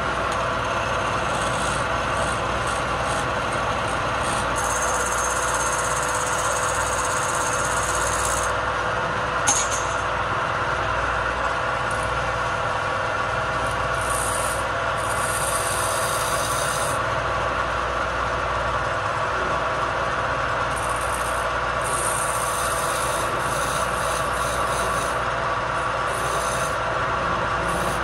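Wood lathe running with a steady hum while a flat scraper is held against the spinning wooden blank, giving a continuous rough scraping. The scraping turns hissier for a few seconds at a time, three times.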